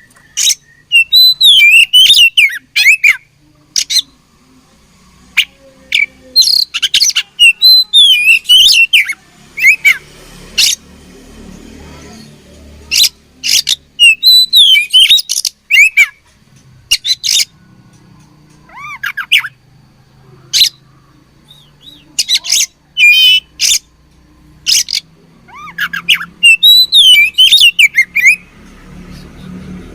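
Oriental magpie-robin (kacer) singing loud, rapid bursts of sharp clicking notes mixed with gliding, warbled whistles. The phrases repeat every few seconds, with short pauses between them.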